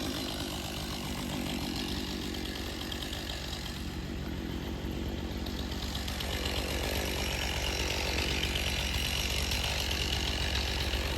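Chainsaw running steadily, its level rising slightly about six seconds in.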